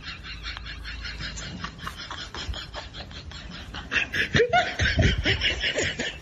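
A person laughing in quick rhythmic pulses, quiet at first and then much louder and harder about four seconds in.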